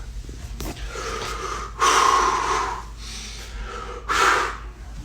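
A person's heavy, audible breaths during a chiropractic shoulder-blade (scapulothoracic) adjustment. The loudest breath comes about two seconds in and another near the end.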